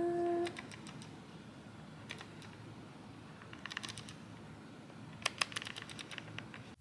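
Faint clicks from a DSLR's rear control dial being turned to scroll through photos on its screen, in four short bursts of quick ticks about a second and a half apart.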